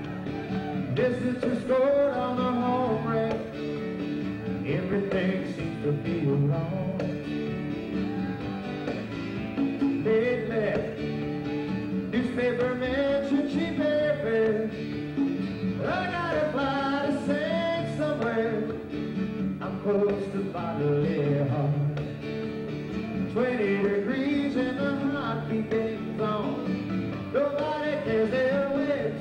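A live country-rock song: a man sings lead vocals over strummed acoustic guitar accompaniment.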